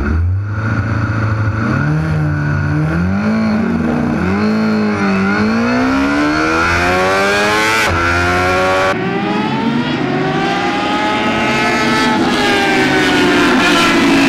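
Sport motorcycle engine launching from a race start and accelerating hard. The revs climb and drop back at quick upshifts in the first few seconds, then rise in long pulls, over a rush of wind noise.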